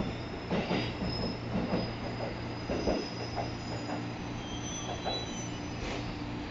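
A JR Kyushu 783 series electric limited express pulling out of the station. Its wheels clack over rail joints for the first three seconds or so, and a thin high wheel squeal lingers as it draws away.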